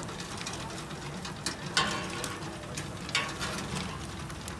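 Carving knife and fork working meat on a rotisserie spit: scattered metal clicks and scrapes, the two loudest just under two seconds in and just after three seconds in.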